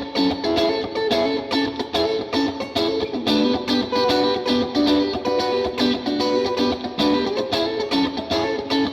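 Fender Mexican-made Stratocaster electric guitar played through a Line 6 Helix on a Vox AC30-style amp preset: a quick run of picked notes and chords.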